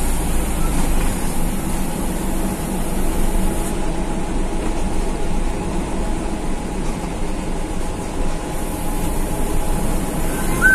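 Mitsubishi-engined coach bus under way, heard from inside the cabin: a steady mix of engine running and road and body rumble.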